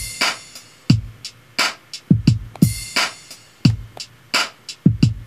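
Sampled boom-bap hip-hop drum pattern from the Beatmaker 2 drum-machine app on an iPad: deep kicks and sharp snares in a slow, steady beat.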